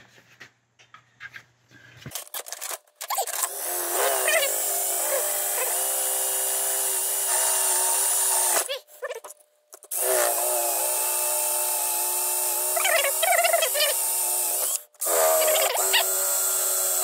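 Cordless drill with a 9/32-inch bit drilling out the blocked port-injector holes in a plastic intake manifold. After a few seconds of small handling clicks, the drill motor runs in three long runs with short stops between, its pitch stepping as the bit bites.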